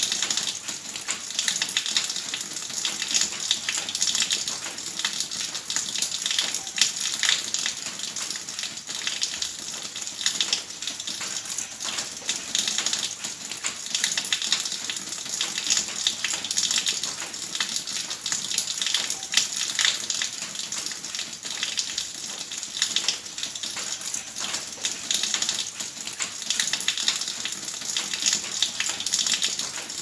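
Water from a spout pouring and splashing into a full tub of water: a steady, dense patter of small splashes.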